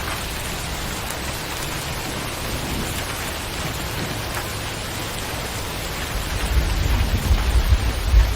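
Steady heavy rain falling, with a low rumble of thunder swelling in the last couple of seconds.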